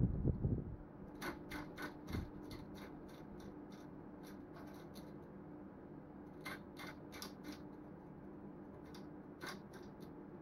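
A zebra finch on a wooden perch making quick, light clicks and scratches, with its beak or feet, in three short runs over a faint steady hum. There is a soft low bump at the very start.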